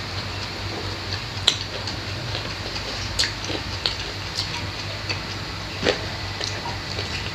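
Close-miked eating by hand: scattered sharp clicks and smacks of chewing mouths and fingers picking at rice and fried food, over a steady low hum.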